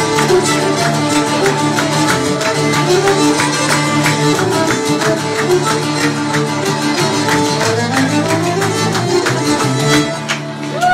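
Violin and acoustic guitar playing a klezmer/Gypsy tune live: the fiddle carries the melody over steadily strummed guitar chords.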